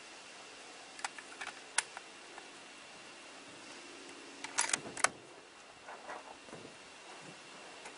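Handling noise: a couple of sharp clicks about a second and two seconds in, then a quick cluster of louder metallic clicks and rattles around the middle, with a few softer ticks after it.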